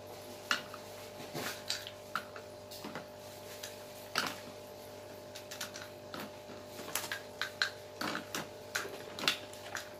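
Light, irregular clicks and taps of small plastic toy kitchenware: a plastic spoon tapping and scraping in a plastic cup while pretend ice cream is scooped, the louder taps scattered a second or so apart.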